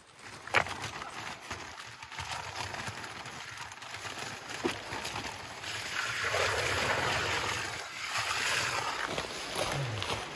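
Loose fill poured from a bag into the gap behind a dry-stone wall, a steady gritty rush for about three seconds in the middle of the clip, after a single knock of stone near the start.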